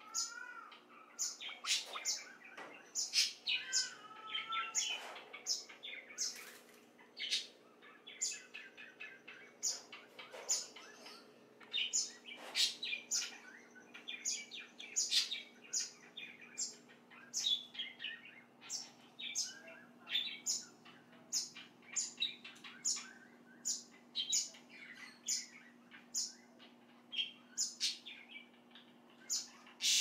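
White-breasted waterhens pecking gobies from a shallow plastic tray of water, their bills making sharp, irregular clicks and taps against the tray, about one or two a second. A few chirping bird calls come in the first few seconds, over a faint steady hum.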